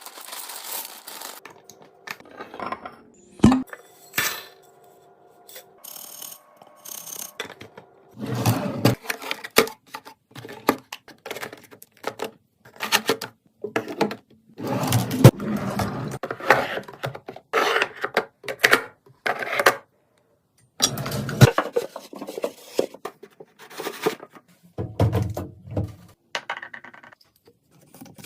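Close-miked restocking sounds: containers and packaged food being handled, set down and rustled, giving a run of short clicks, knocks and clinks with rustling in between.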